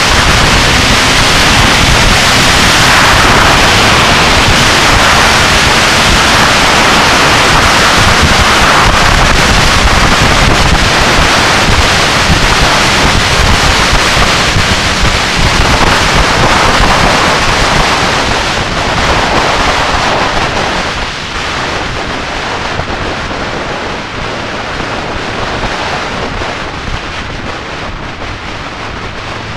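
Loud wind rush buffeting the microphone of a camera mounted on a motorcycle riding at speed, which drops off noticeably about twenty seconds in.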